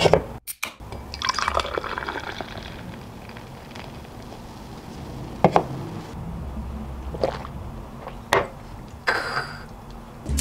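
Beer poured from a can into a small glass, fizzing as it fills, with a few sharp knocks later on.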